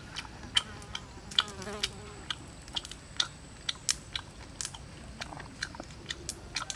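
Grilled lobster shell being cracked, peeled and chewed: sharp, irregular crunches and clicks, several a second, over a faint steady high whine.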